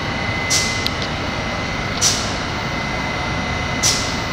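An R68 subway train standing at a station with its doors open: a steady hum with a thin high whine over it, and a short hiss of air about every two seconds.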